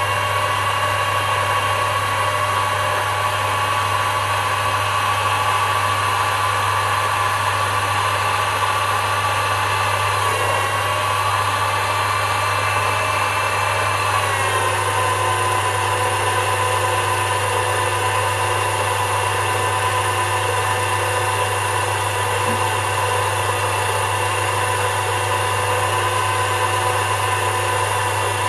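Sherline micro lathe running at maximum speed in bottom gear, a steady high motor whine over a low hum, while a homemade carbide insert turns aluminium. About halfway through, the whine drops slightly in pitch and stays lower.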